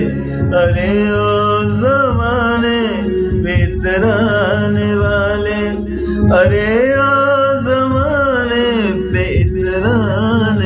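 Male voice singing a line of an Urdu ghazal in long held notes that bend and waver, over a steady low drone.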